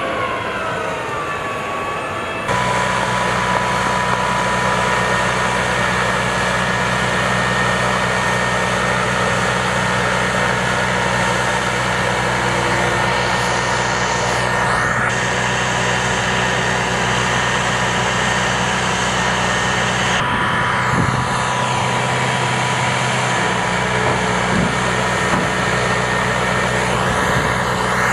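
A tracked armored bridge-launcher vehicle's engine runs steadily under load, with a low hum and a high steady whine, as its hydraulic launch arm raises and unfolds the Heavy Assault Scissor Bridge. The sound changes abruptly about two and a half seconds in, after a gliding whine. Brief sweeping changes in pitch come around the middle and again a few seconds later.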